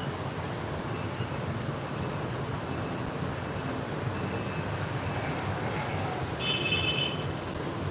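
Steady street traffic noise, with a short high-pitched beep about six and a half seconds in.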